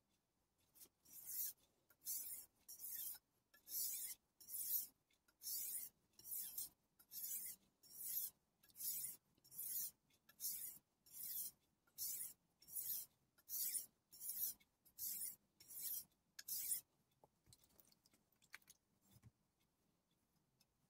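Kai Shun Gold chef knife's blade stroked back and forth on the wet 1000-grit side of a Kai DM-0708 combination whetstone: a rhythmic hissing scrape, a little more than one stroke a second, that stops near the end.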